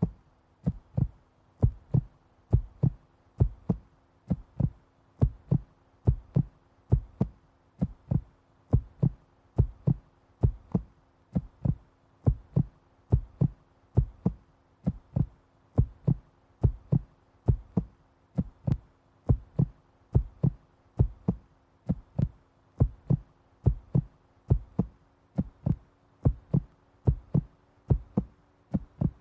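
Heartbeat sound effect: steady, evenly spaced low thumps, about two a second, over a faint steady hum.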